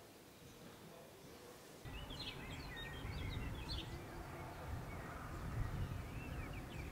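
Quiet room tone, then about two seconds in an outdoor ambience starts: several small birds chirping and trilling over a low, steady rumble.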